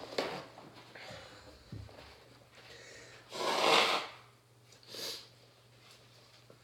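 A person blowing his nose hard into a paper towel about three and a half seconds in, with a shorter blow or sniff about a second later; paper rustles as the towel is pulled off near the start. His nose is running from the heat of a Carolina Reaper pepper.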